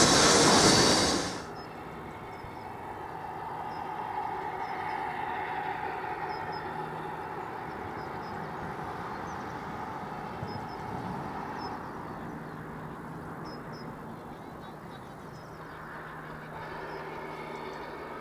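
A steam train passing close by, loud, cutting off about a second in. Then, much quieter, a distant steam tank engine and autocoach working slowly, with faint bird chirps.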